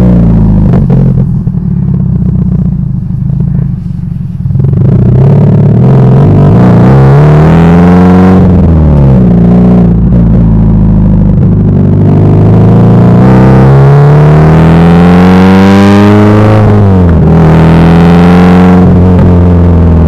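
Subaru Impreza STI's turbocharged flat-four engine heard at the tailpipe through an A.R.T. titanium cat-back exhaust while driving. The note settles low for the first few seconds, then climbs in pitch under acceleration several times, dropping sharply at each gear change, with distortion at the loudest parts.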